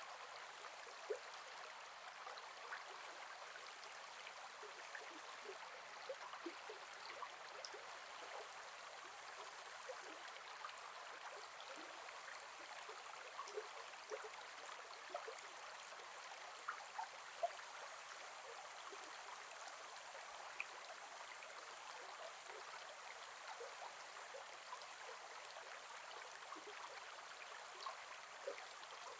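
A gentle forest river flowing over stones, a steady wash of water with many small bubbling plinks scattered through it.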